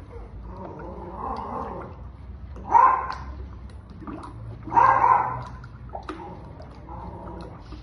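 A dog barks twice, about two seconds apart, loud and sharp. Under the barks is the soft, wet sound of thick homemade soap mixture being stirred in a basin.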